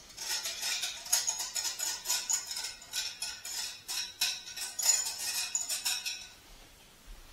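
Metal wire whisk scraping and tapping around the inside of a small bowl, with rapid irregular clinks and a jingling metallic ring, as the dressing is scraped out. It stops about six seconds in.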